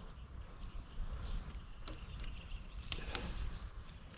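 A few faint, light clicks from hand work fitting seals onto a log splitter's hydraulic cylinder parts, the clearest about two and three seconds in, over a steady low rumble.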